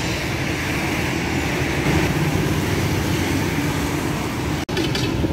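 Steady road traffic noise from cars passing on a busy city street, a continuous low rumble of engines and tyres. It cuts out suddenly for an instant near the end.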